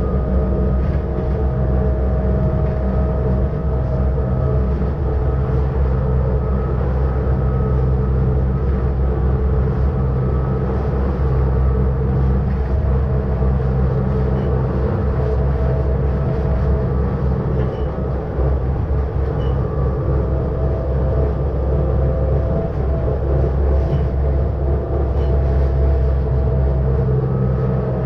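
ČSD class EM 29.0 electric rack-railway multiple unit running steadily, heard from the driver's cab: a constant low drone with a steady motor and gear whine over the running noise.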